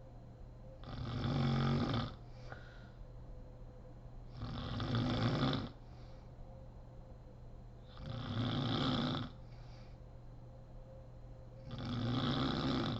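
A woman snoring in deep sleep. Four loud snores come about every three and a half seconds, each lasting a little over a second, with a faint breath between them.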